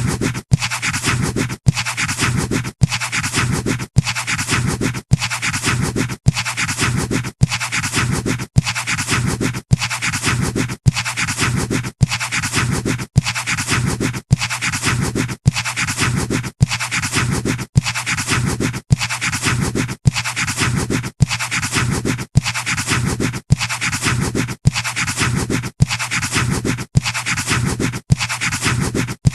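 Pencil scratching on paper in a continuous drawing stroke pattern, repeating in the same short pattern about once a second with a brief break between repeats.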